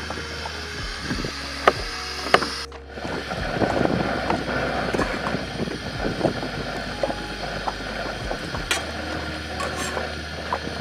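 Knife blade scraping and tapping against a metal wok as sliced mushrooms are stirred, giving irregular clicks over a steady background hum.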